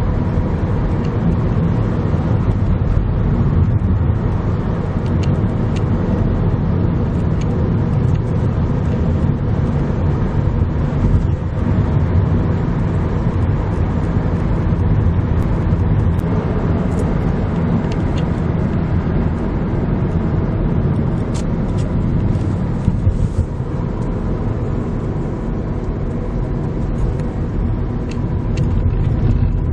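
Steady engine and tyre drone heard from inside a moving car's cabin, a low, even rumble with a faint hum on top.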